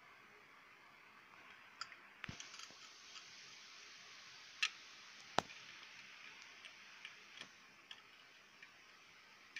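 Small scattered clicks and taps as the metal legs of a vertical deflection IC are fitted by hand into the holes of a TV circuit board. The sharpest clicks come about 2, 4.5 and 5.5 seconds in, over a faint hiss.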